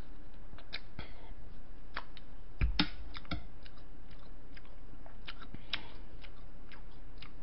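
Eating sounds from a spoon and shaved ice (bingsu): scattered small clicks and mouth sounds, with one louder knock about three seconds in as the spoon is set down on the tray.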